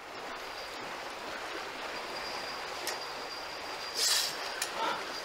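Steady outdoor rushing noise, like moving water, with a thin high whine running through it and a brief louder burst of noise about four seconds in.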